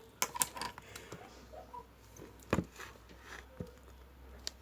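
Scattered sharp clicks and taps: several in quick succession near the start, then single ones spaced about a second apart.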